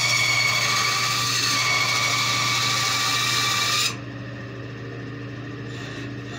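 Bandsaw blade cutting into a wood blank for about four seconds with a bright whine, then the cut stops suddenly and the saw runs on with a steady hum before a lighter cut starts near the end.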